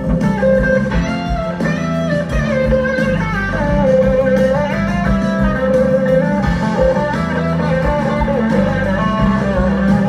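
Live blues-rock band playing a slow song: an electric guitar lead with sliding, bending notes over bass and drums.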